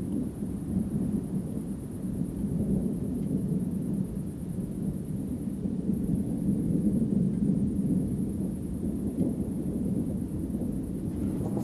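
Distant thunder rolling on and on in a low, unbroken rumble that swells and fades.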